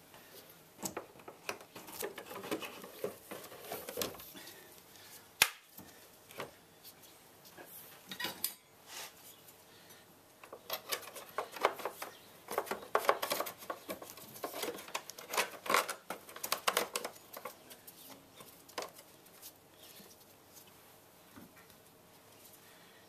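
Knocks and clinks of a car battery being set into its plastic tray and its metal hold-down clamp being fitted with a wrench. One sharp click comes about five seconds in, and there is a busy run of clinking in the middle.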